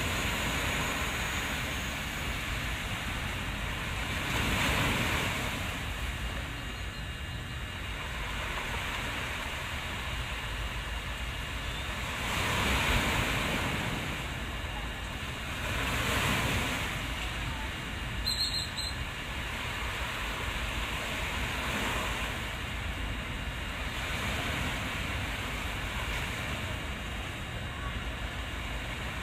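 Surf washing and breaking, rising and falling in swells every few seconds, over a steady low rumble of wind on the microphone.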